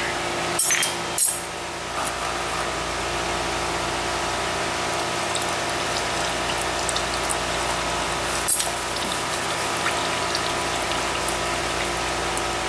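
Used engine oil draining in a steady stream from under a car into a drain pan, with a few sharp clicks, two near the start and one past the middle.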